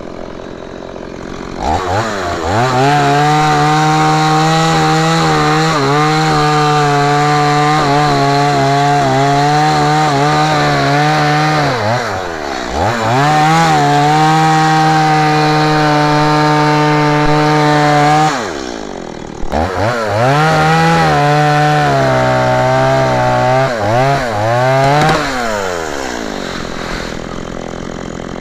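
STIHL MS 170 two-stroke chainsaw revved from idle to full throttle about two seconds in and held there in long runs, the pitch wavering as it cuts into wood. The revs dip and climb twice along the way, a few quick blips follow, and it drops back to idle near the end.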